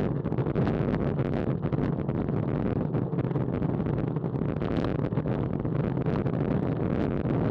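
Wind buffeting the microphone of a bike-mounted action camera on a road bike riding at about 21 mph: a steady low rumble mixed with tyre and road noise, with many small clicks and rattles throughout.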